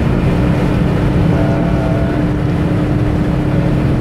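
Car engine and road noise heard from inside the cabin while cruising at a steady speed: a dense, even rumble with a steady droning hum over it.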